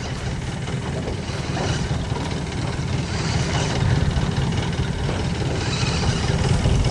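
Outboard motor running steadily, pushing the boat at trolling speed: a constant low engine hum with water and wind noise over it.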